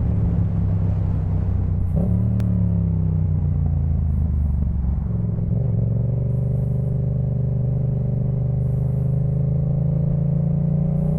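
Yamaha MT-07's parallel-twin engine running through a Jeskap K4 full aftermarket exhaust while riding. The note shifts about two seconds in, then its pitch climbs slowly and steadily through the second half as the engine speed rises.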